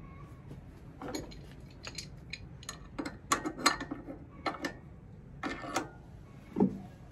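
Adjustable wrench and bolt hardware clicking and tapping against a steel bracket as a bolt is fitted and tightened: a run of irregular sharp clicks, with a duller knock near the end.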